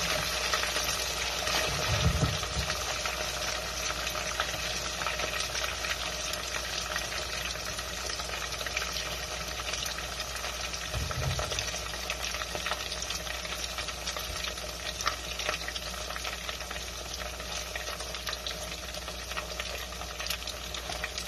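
Salmon ends frying in hot oil in a pot, a steady sizzle with constant crackling spatter. Two dull low knocks, about two seconds in and about halfway through.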